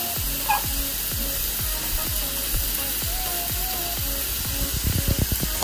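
A table knife sawing through grilled chicken breast on a wooden cutting board in repeated strokes, with background music throughout.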